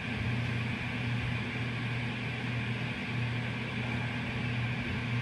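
Steady low mechanical hum with an even hiss underneath, unchanging throughout, like a fan or appliance running.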